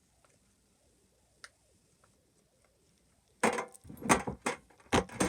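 Bubbles of a silicone pop-it fidget toy being pressed, giving sharp pops. One faint pop about a second and a half in, then a quick run of louder pops in the last two seconds.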